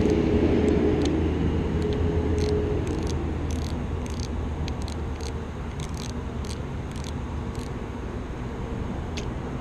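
An engine drones steadily and slowly fades away. Over it come small irregular clicks as a small spinning reel is unscrewed and taken apart by hand.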